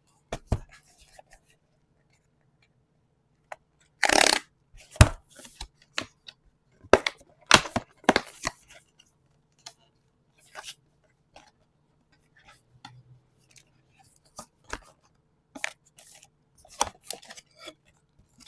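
Packaging of a trading-card booster box being torn open and handled: a run of irregular short tearing and crinkling noises, loudest about four seconds in and again around eight seconds.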